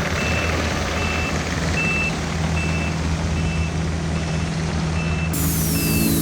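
Heavy equipment's reversing alarm beeping about once every 0.8 seconds over its steadily running diesel engine. About five seconds in, a falling tone sweeps down and short musical notes come in.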